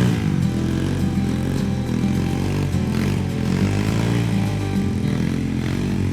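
Trail motorcycle engine revving up and down repeatedly as the rider tries to climb a steep uphill, over background music.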